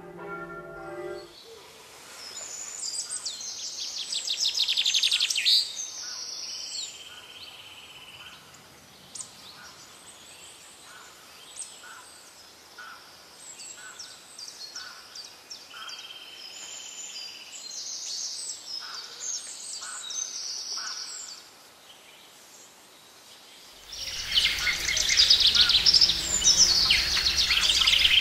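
Birdsong: small birds chirping and trilling, with a few short held whistles. About 24 seconds in it turns into a much louder, denser chorus of chirping.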